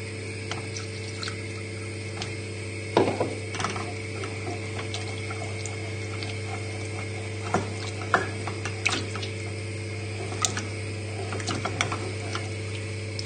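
Wooden spoon stirring a thick roux paste into milk in a saucepan, the early stage of a white sauce, with wet sloshing and occasional knocks of the spoon against the pan. A steady low hum runs underneath.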